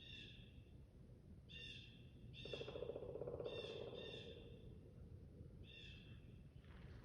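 Faint wheezy breathing: a short, high whistling wheeze comes with each breath, about once a second, and a buzzing snort lasting about a second and a half cuts in a third of the way through.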